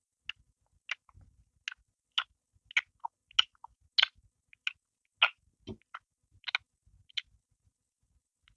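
A person chewing a mouthful of bread roll, close to the microphone: a string of short, sharp, wet mouth clicks, about two a second, that stops near the end.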